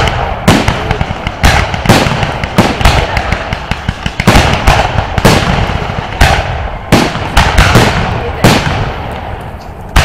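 Aerial fireworks launching and bursting overhead: about fifteen sharp bangs in quick, irregular succession over a low rumble, thinning out to a lull near the end.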